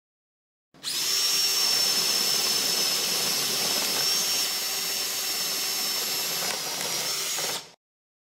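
Power drill boring a hole in wood with an Irwin 4X flat (spade) bit. It starts abruptly about a second in, runs steadily with a high motor whine for about seven seconds, and cuts off suddenly.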